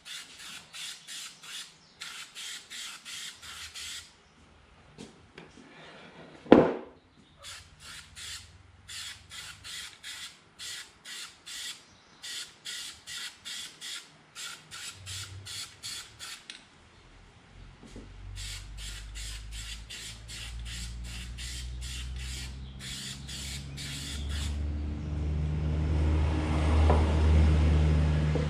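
Aerosol spray-paint can sprayed in quick short bursts, about three a second, with pauses between runs. One sharp knock comes about six and a half seconds in, and a low drone builds over the last ten seconds, loudest near the end.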